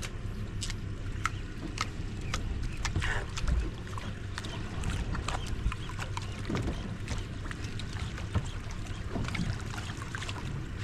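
Sea water lapping and slapping against the hull of a boat at sea, with irregular small splashes and ticks over a steady low rumble.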